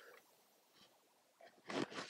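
Hand carving tool scraping the cedar bill of a wooden duck decoy. Mostly quiet with a few faint ticks, then a scraping stroke near the end.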